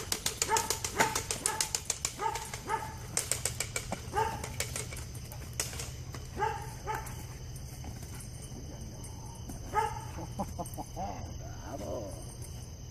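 A dog barking in short, repeated barks, about two a second at first and then only now and then, with sharp clicks mixed in during the first half.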